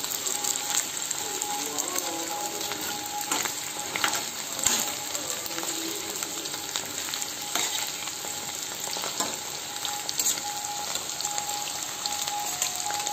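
Battered chicken pieces deep-frying in hot oil in an iron kadai: a steady sizzle with scattered crackles, and a metal spatula now and then clinking against the pan as the pieces are turned.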